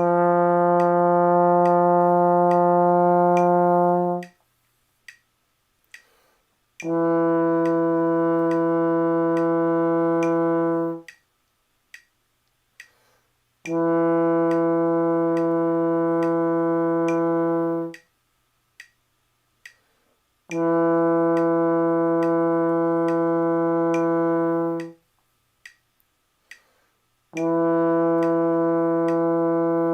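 Trombone playing a long-tone exercise: five sustained notes of about four seconds each, separated by pauses of a couple of seconds, while a metronome clicks steadily at about 70 beats a minute.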